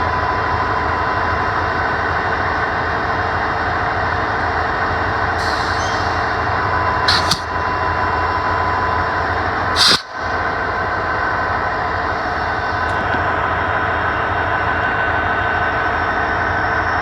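A local train's locomotive engine running steadily close by, with two short hisses about seven and ten seconds in.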